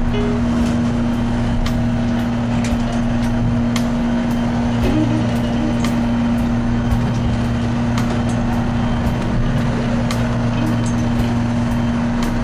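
Fishing boat's engine running steadily underway, heard from inside the wheelhouse as a constant low drone with a steady hum, with scattered light ticks over it.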